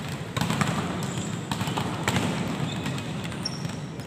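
Volleyball being hit and bouncing on a hard sports-hall floor: several sharp smacks that echo around the large hall.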